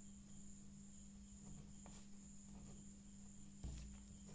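Near silence with a steady high-pitched whine and a low hum, under faint scratches and taps of a ballpoint pen writing on paper. There is a soft thump near the end.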